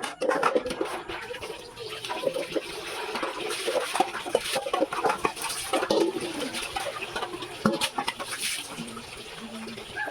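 Chickens clucking over a steady rushing noise, with scattered clicks.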